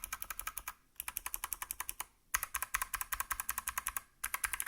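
Mechanical keyboard keys with clicky Kailh BOX White switches, pressed rapidly in four quick bursts of about ten clicks a second, with short pauses between them. This is a sound test of the keys fitted with o-rings.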